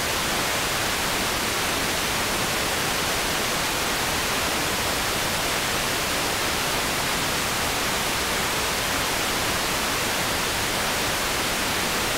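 Steady, even hiss of static with nothing else in it: an audio channel carrying noise only, no sound signal.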